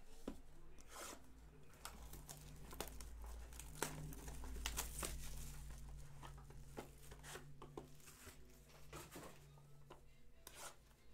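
Plastic shrink wrap being torn open and crinkled off a trading-card box, a steady run of small crackles and rustles.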